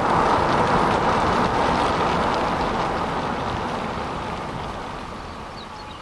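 Wind rushing over the microphone, a steady rushing noise that slowly dies away over several seconds.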